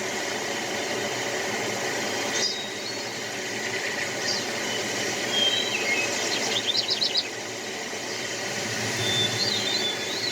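Small songbirds chirping and whistling over a steady background hum. There are short sliding calls throughout, and a quick run of about six sharp notes about seven seconds in.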